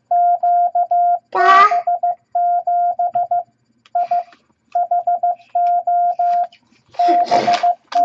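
MFJ-414 Classroom Morse Tutor sending random letters and numbers in Morse code at 15 words per minute: a steady mid-pitched beep keyed in short dots and longer dashes, in groups separated by short gaps. A brief voice sound about a second and a half in, the loudest moment, and a short noisy burst near the end.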